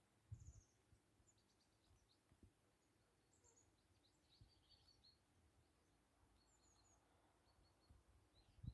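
Faint short chirps and high calls of small songbirds, scattered through, with low thumps about a third of a second in and again at the end.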